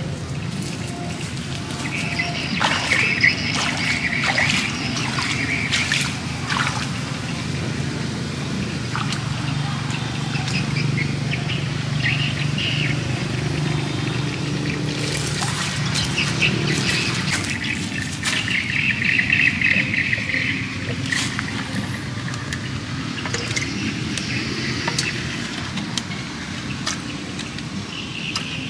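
Birds chirping on and off over a steady low hum. About halfway through comes water splashing and pouring as a pot is dipped and filled in a pond.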